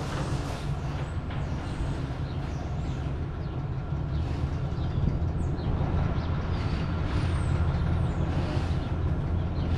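An engine idling steadily with a low hum, getting a little louder about halfway through.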